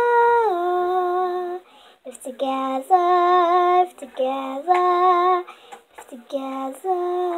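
A girl singing alone without accompaniment. A held note steps down in pitch about half a second in, then comes a series of sung phrases with short breaths between them.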